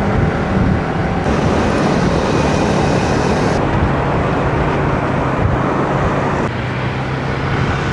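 A motor vehicle driving, with its engine hum under heavy road and wind noise. The sound changes abruptly a few times, as if spliced from several clips.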